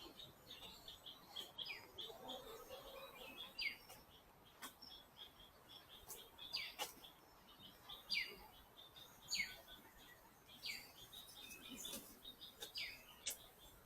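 Birds calling throughout: a busy stream of short chirps, with a call that slides downward repeated every second or two. A few sharp faint clicks are heard among them.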